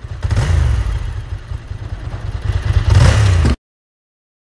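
Motor vehicle engine running and revving, growing louder toward about three seconds in, then cutting off suddenly.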